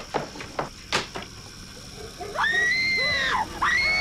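A young woman screaming in terror: a long high-pitched scream starting about halfway through, a brief break, then a second scream that carries on. A few short sharp knocks come before it in the first second or so.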